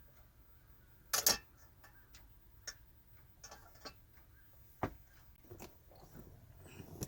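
Irregular clicks and knocks of small hard objects, the loudest a short clatter about a second in, then single clicks every second or so.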